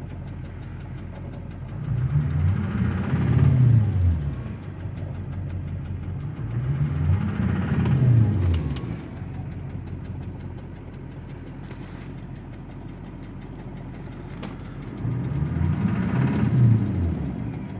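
2005 Duramax LLY 6.6-litre V8 turbo-diesel running, revved up and let fall back three times. The owner takes its noise for a bad injector, with an extra exhaust-like sound that he compares to a leaking exhaust manifold.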